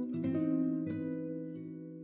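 Background music of a plucked-string instrument: a few notes picked early on, then a chord left ringing and slowly fading.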